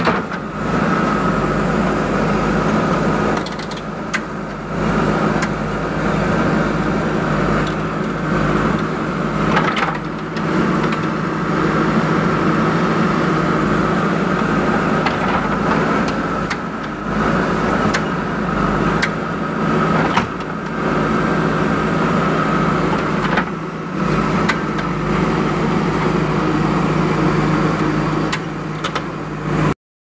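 JCB 3DX backhoe loader's diesel engine running continuously while the backhoe digs, rising and falling with the hydraulic load, with a steady high whine over it. A few short knocks come from the bucket and arm working the soil.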